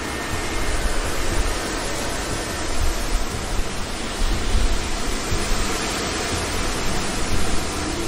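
Steady broad rushing noise with an uneven low rumble beneath it.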